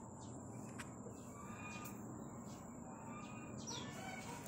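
Faint outdoor ambience: scattered bird chirps, with one short falling whistle near the end, over a steady background hiss and a thin constant high-pitched tone.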